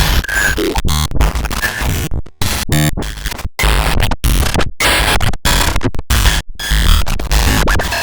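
Digital glitch sound effect: harsh bursts of static and distorted buzz, chopped by abrupt dropouts to silence several times a second, with stuttering tones and low rumbles in between.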